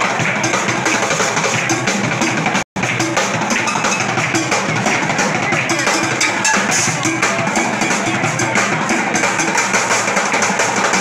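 Street drummers beating fast, dense rhythms on upturned plastic buckets, paint tubs and metal tins. The sound cuts out completely for a split second a little under three seconds in.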